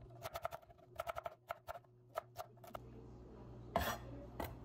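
Chef's knife dicing celery on a wooden cutting board: a fast run of knife taps on the board for about the first three seconds, then two louder single chops near the end.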